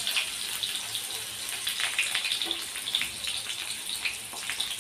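Sliced onion frying in hot oil in a kadai, freshly added: a steady sizzle with many small crackles and pops.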